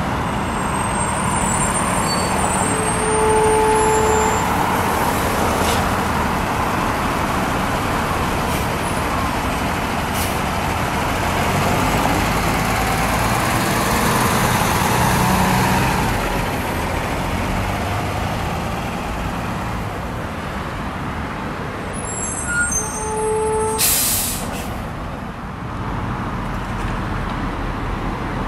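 Heavy fire-department maintenance truck's engine running as it drives slowly past, with a brief tone a few seconds in and again near the end. A short sharp hiss of air brakes comes about four seconds before the end.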